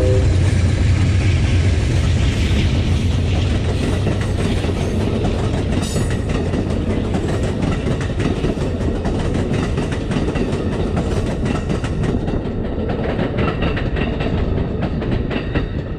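Amtrak passenger train passing close by: the diesel locomotive's horn cuts off right at the start and its engine drones as it goes past. Then the bilevel Superliner cars roll by with a steady rumble and a clickety-clack of wheels, easing slightly near the end.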